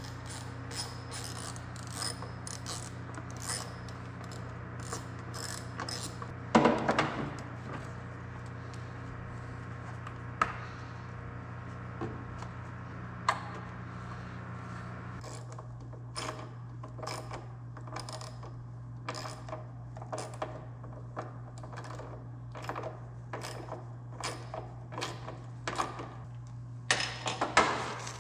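A steady run of light metal clicks and small clatters from hand tools taking out the bolts of a Bobcat skid steer's front light mount, over a steady low hum. There is one louder clatter about a third of the way in, and the clicking comes thicker from about halfway on.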